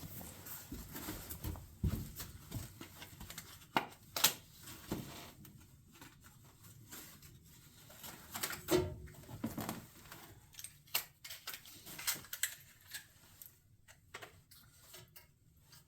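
Faint, scattered clicks and taps of small metal parts and tools being handled during a spark plug change, at irregular intervals with quiet gaps between.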